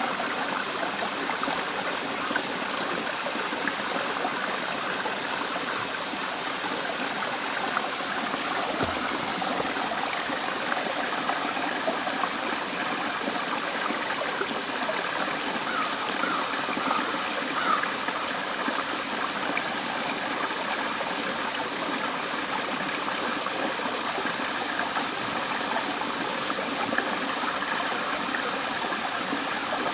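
Small waterfall and stream running over rock ledges and boulders: a steady, unbroken rush of water.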